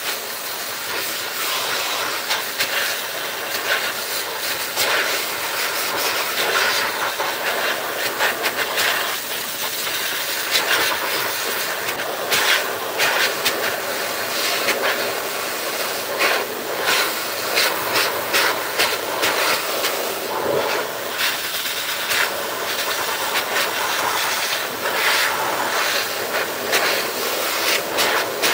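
Pet grooming blower running, its air rushing out of a corrugated hose onto a cat's fur as a steady loud hiss, with frequent short surges in loudness.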